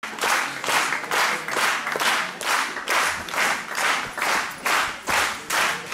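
Audience clapping in unison to a steady beat, about two claps a second.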